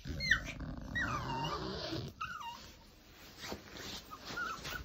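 Poodle whining: a string of high, sliding whimpers, the longest falling in pitch over about a second, with a few short squeaks near the end. The whining is the dog protesting its owner leaving.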